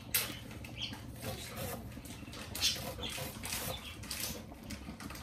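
Kitchen knife chopping an onion on a plastic cutting board: a run of short, unevenly spaced knocks as the blade strikes the board.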